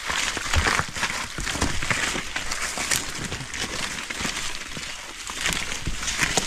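Footsteps crunching through dry fallen leaves and brushing through grass and undergrowth: a dense, irregular run of crackles and rustles.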